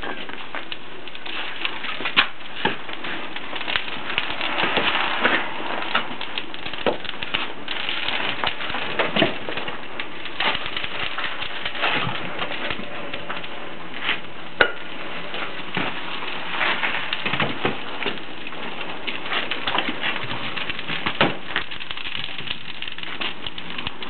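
Wood fire in an anagama kiln burning hard during stoking: a steady rush of flame with dense crackling and popping throughout, and a few sharper cracks or knocks standing out.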